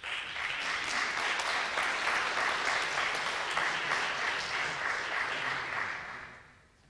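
Audience applauding: many hands clapping, starting abruptly and dying away about six seconds in.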